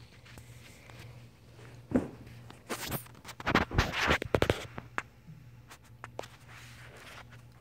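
Handling noise on the phone's microphone: a cluster of loud scratching and rustling noises in the middle, over a steady low room hum.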